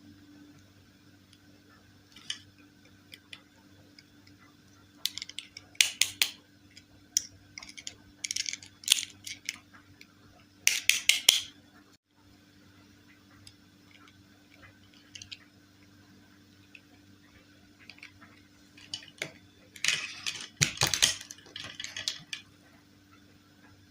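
Dolls, doll accessories and packaging handled by hand: scattered clicks, taps and crinkly rustling in two busy spells, about a third of the way in and again near the end, over a faint steady hum.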